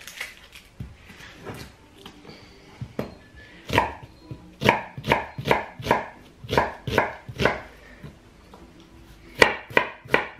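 Chef's knife cutting through an onion onto a wooden chopping board: a run of firm knocks about two a second, a short pause, then quicker knocks near the end as the onion is diced.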